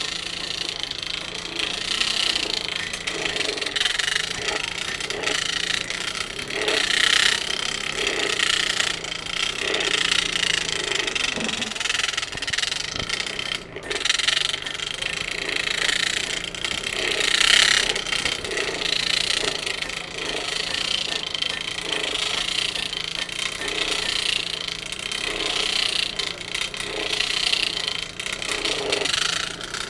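Forge blower running to start a coal fire, a rasping, rushing noise that swells and fades every second or two. The blower is one the smith judges to need work.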